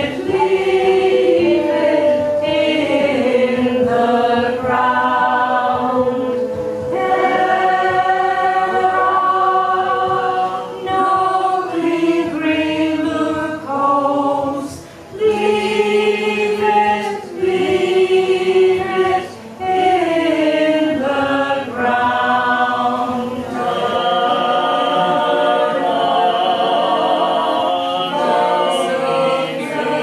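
A small group of men and women singing a song together, unaccompanied, in long held notes. There are a couple of short gaps about halfway through.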